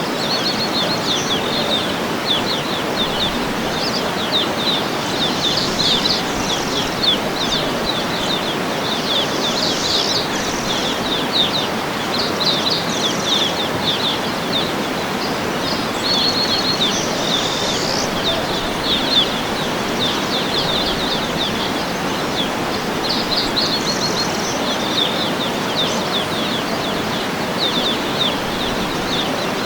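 Waterfall rushing steadily, with small birds chirping and trilling over it again and again.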